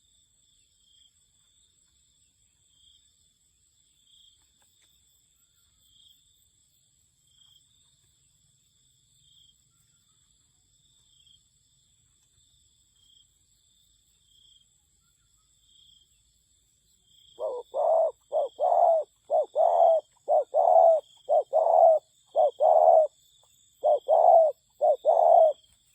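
Spotted dove cooing: a loud run of short, quick coos, roughly two a second in short groups, starting about two-thirds of the way in. Before it, only a faint high chirp repeating about once a second.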